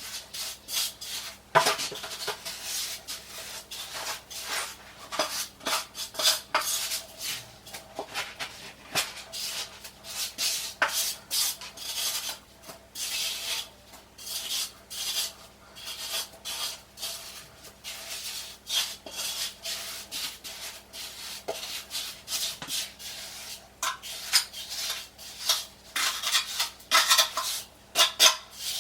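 A hand trowel scraping and rubbing mortar in irregular strokes, some harsher than others, as the mortar is worked.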